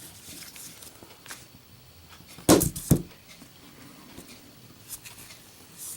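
Zippo lighter with a glued-on brass plaque, dropped while lit: two sharp metal clacks about half a second apart, a little past the middle. A fan hisses faintly underneath.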